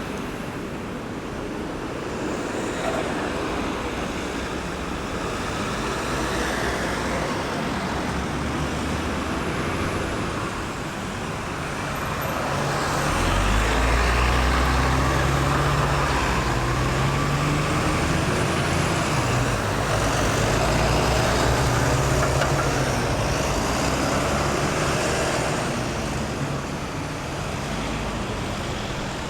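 Road traffic passing with steady tyre and engine noise. About halfway through, a large vehicle's engine rumble comes in low and heavy and grows louder, holding for about twelve seconds before easing off near the end.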